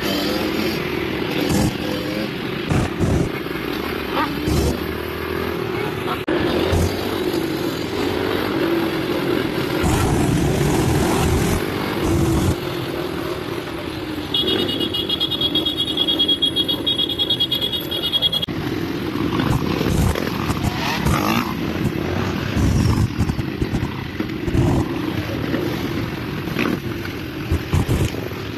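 Dirt bike and ATV engines running and revving as a group rides down a street, their pitch rising and falling throughout. For about four seconds just past the middle, a steady high-pitched tone sounds over the engines.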